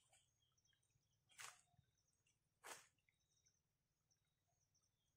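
Near silence: faint forest ambience with thin, high chirping coming and going, and two brief soft rustles about a second and a half and nearly three seconds in.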